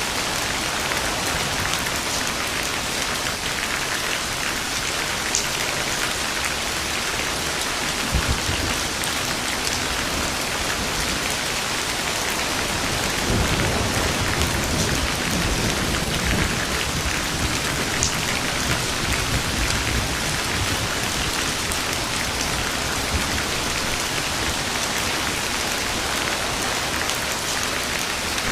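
Steady heavy rain falling, with a low roll of distant thunder rumbling from about halfway through and a brief low thump a few seconds before it.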